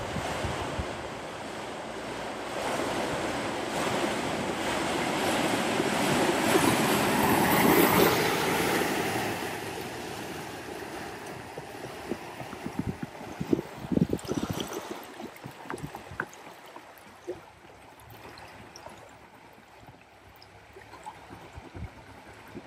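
Floodwater surging and splashing in the bow wave of a Mercedes van driving through deep water, growing louder to a peak about eight seconds in as the van passes close, then fading. It gives way to a quieter wash of moving water with scattered low knocks.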